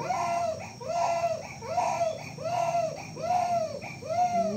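A baby crying in a steady run of short wailing cries, each rising and falling in pitch, about one and a half cries a second.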